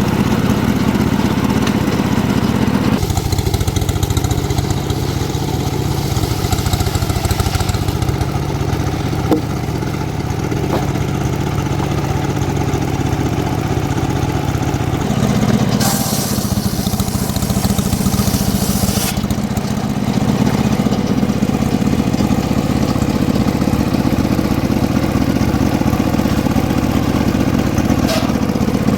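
Engine of a homemade circular-saw mill running steadily, with a burst of high hiss for about three seconds past the middle.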